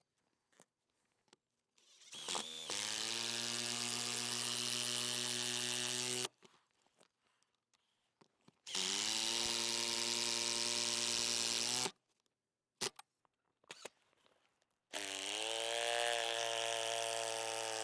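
Cordless driver driving lag screws through a metal solar mounting attachment and the shingles into the roof. Three runs of about three to four seconds each, each rising quickly in pitch and then holding steady.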